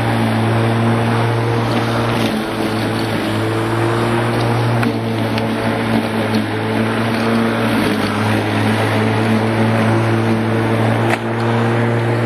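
Bosch Rotak 34R corded electric rotary lawn mower running while it cuts grass: its 1300 W motor gives a steady hum, with a loud even rush from the spinning blade and grass over it.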